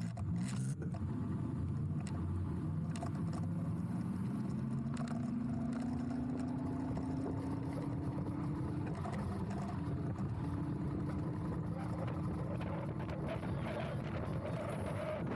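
Electric mini-bike motor whining as the bike picks up speed, its pitch climbing steadily over several seconds. It breaks off briefly, then climbs again, over a low rumble of tyre and wind noise.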